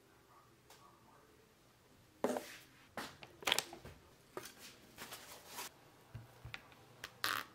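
Sporadic light knocks, taps and rustles of food and packaging being handled and set down on a kitchen counter and a wooden cutting board. Nearly quiet for the first two seconds, then the loudest knock a little after two seconds and scattered taps after it.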